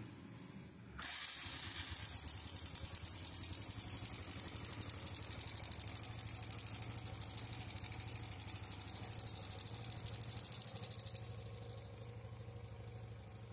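Honda Biz 125 single-cylinder four-stroke engine starting about a second in and idling with a loud high-pitched clatter from its cam chain, which is slack because the tensioner spring has lost pressure. Near the end the clatter fades and the engine runs quietly as the tensioner is pushed in by hand, showing that the worn tensioner is the cause of the noise.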